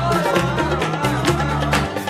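Background music with held bass notes, a melody and percussion strokes.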